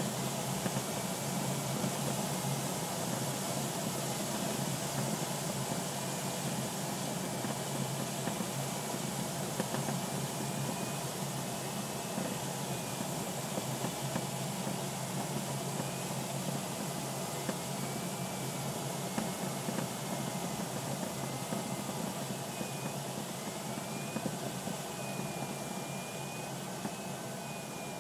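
Steady rush of airflow around a DG-505 glider's cockpit and canopy during the landing approach, with a faint thin tone that wavers slowly up and down in pitch. The rush eases a little near the end as the glider slows over the grass.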